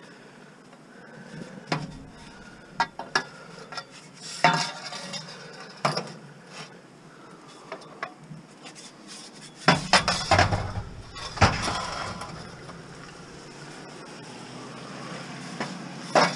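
Long aluminum pipes clanking and scraping against scrap metal as they are pushed into a loaded van: scattered metallic knocks and clinks, the loudest a cluster about ten seconds in.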